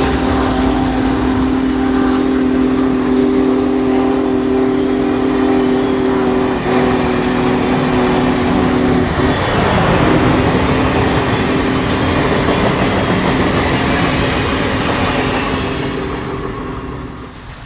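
Union Pacific Big Boy 4014's chime steam whistle sounded in long blasts, a steady chord of several tones held for about nine seconds, broken off, then held again for about seven more, over the continuous noise of the train running past. The train noise fades in the last couple of seconds.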